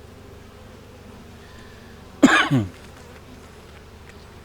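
Honeybees buzzing steadily around an open hive. About two seconds in comes one short, loud cough with a falling pitch.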